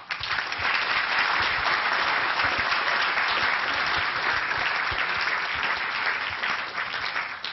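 A roomful of people applauding, a dense, steady patter of many hands clapping that cuts off suddenly at the end.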